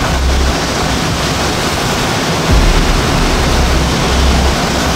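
Hurricane-force wind and driving rain, a loud steady rush of noise, with gusts buffeting the microphone as low rumbles about three times.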